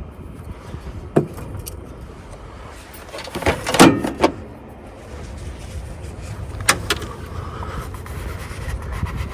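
A sharp click, then a short clatter of hard knocks about four seconds in, and another click a few seconds later, from parts and tools being handled during an oil change, over a steady low rumble.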